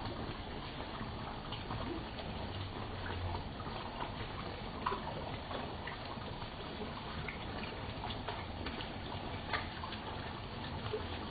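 Steady trickling and bubbling of koi pond water, with scattered small ticks and plops on top, two of them sharper, about five and nine and a half seconds in.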